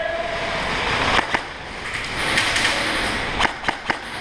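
A few sharp snaps of airsoft fire in a concrete bunker: two close together about a second in and three more near the end, over a steady rushing background.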